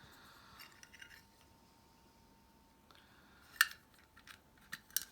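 Quiet handling of a metal Zippo lighter as its insert is taken out of the case: a few small clicks, with a sharp metallic click about three and a half seconds in and another near the end.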